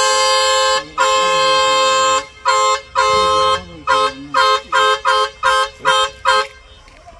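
Two-tone vehicle horn sounding loudly: two long blasts, then a quick run of about ten short toots that stops about six and a half seconds in.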